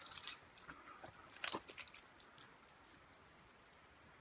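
A bunch of keys jangling and clinking, in short clusters of sharp high clicks through the first two and a half seconds and then fading away.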